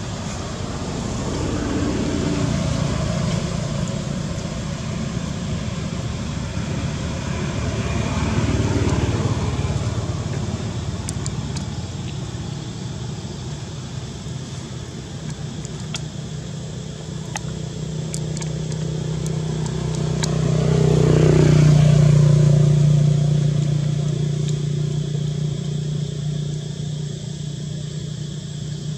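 Motor vehicles passing on a nearby road: the engine and tyre noise swells and fades three times, loudest about two-thirds of the way through.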